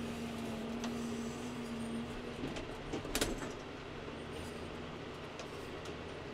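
Tractor engine running as the front loader lifts a full bucket of muck, with a steady whine for the first couple of seconds and a sharp knock about three seconds in.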